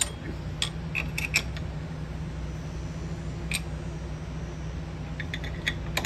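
Metal clicks and clinks of a steel bolt and hardware being worked by hand through a coilover's lower mount and the hub knuckle: a few sharp taps in the first second and a half and one more about three and a half seconds in, over a steady low hum.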